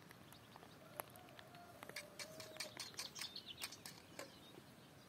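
Faint birdsong: a quick run of short, high chirps from about two to four seconds in, with a few light clicks from a matchbox being handled.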